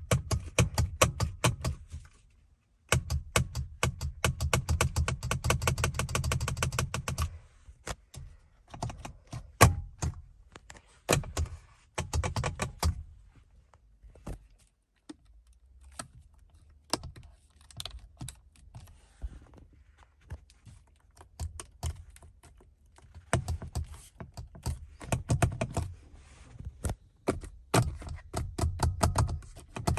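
Rapid clicking and tapping in bursts of several clicks a second, each with a dull low thud under it. There is a short pause about two seconds in, sparser clicks through the middle, and dense runs again near the end.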